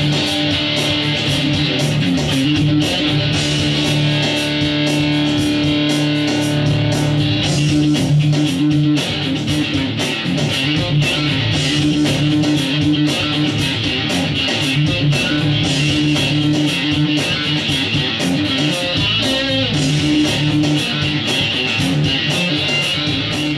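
1983 Aria Pro II electric guitar played plugged in, a steady stream of picked notes over held low notes.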